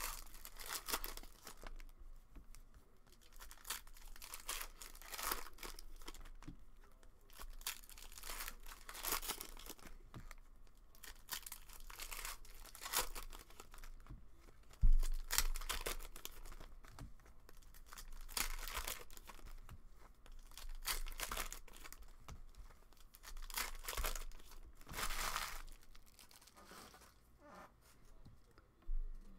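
Plastic wrappers of trading card packs being torn open and crinkled, in irregular crackling rustles, with one sharp thump about halfway through.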